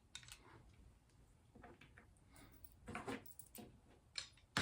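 Faint scattered clicks and taps of small metal hardware being handled: the bolt and washers for a door closer's adjusting arm, a little busier about three seconds in and a sharper click near the end.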